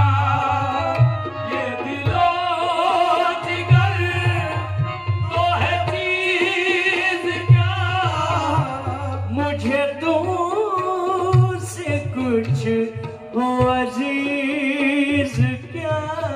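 Live qawwali music: a singer's drawn-out, ornamented vocal line with wavering pitch over steady tabla drumming.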